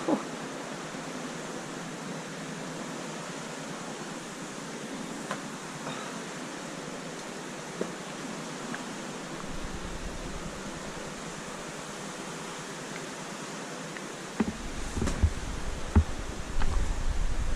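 Steady rushing hiss of running water in a cave passage. A few scrapes and knocks come through, growing louder and more frequent near the end as someone moves over the rock.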